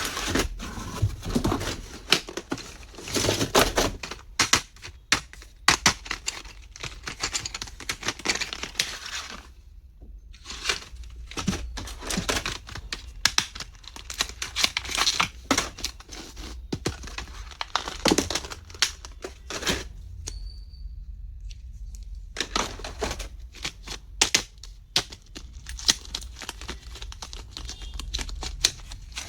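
Packaging being handled while unboxing stationery: crinkling and tearing, with irregular sharp clicks and taps and a couple of short pauses.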